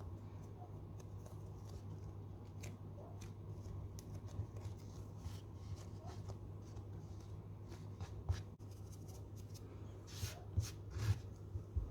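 Light rubbing, scraping and tapping of hands and kitchen utensils preparing food, over a steady low hum; a few sharper clicks and knocks near the end.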